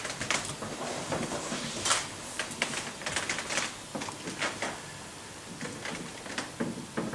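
Scattered, irregular soft clicks and light knocks.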